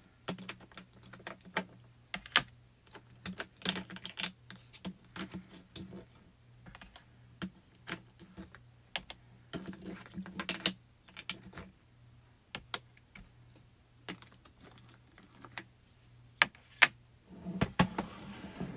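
Small plastic mini ink-pad cubes clicking and clattering as they are sorted through, picked up and set down on the desk: many quick, irregular taps and clicks, a few of them sharper knocks.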